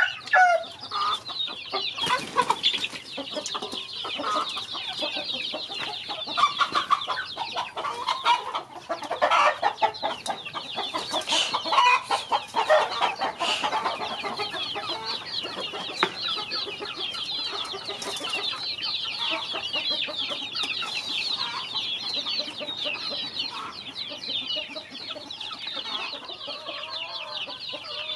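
A flock of young chickens peeping non-stop in a dense, high chatter, mixed with lower clucks, while they feed. A few sharp taps stand out now and then.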